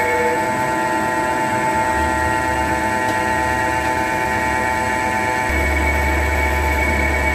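CNC turning lathe running a cut, its spindle turning the chucked workpiece against the tool: a steady machine whine of several held tones, with a low hum that comes and goes.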